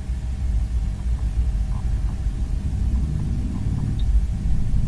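A low, fluttering rumble with a faint steady hum above it.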